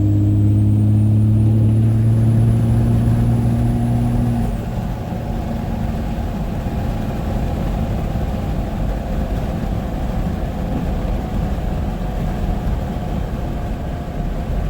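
5.9L Cummins diesel in a Dodge Ram 3500 pulling under light boost with a faint high turbo whistle, then backing off about four and a half seconds in. After that there is steady road and wind noise through the open window, with the low hum of Toyo AT3 all-terrain tires, which are quiet at highway speed.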